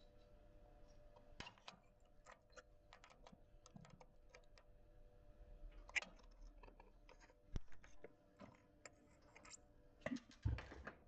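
Faint, scattered small clicks and taps of hand tools and metal parts being handled, with a few louder knocks about six, seven and a half, and ten seconds in.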